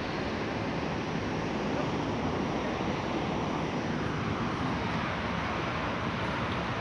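Steady city street ambience: an even wash of traffic noise with no distinct events, swelling slightly a couple of seconds in.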